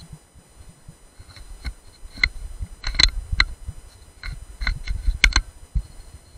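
BSA R10 air rifle being handled: a run of sharp clicks and knocks, about ten spread over four seconds, with low bumps as the gun and scope are moved.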